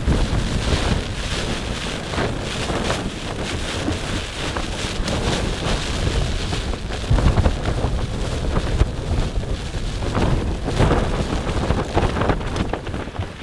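Strong gusting wind battering a trekking-pole tent: the flysheet flaps and snaps in quick irregular cracks over a continuous rumble of wind buffeting the microphone, with harder gusts about halfway through and near the end.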